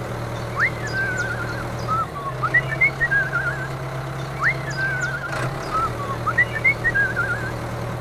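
A steady low engine-like hum under a whistled phrase, a quick rising sweep followed by a warbling tone, that repeats the same way about every four seconds: a looped tractor-and-whistle sound effect laid over the toy bulldozer's run.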